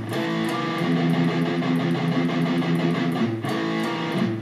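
Electric guitar playing a metal riff: fast palm-muted chugging on the open low E string, broken up by two-note power chords on the A and D strings. There is a short break in the playing about three and a half seconds in.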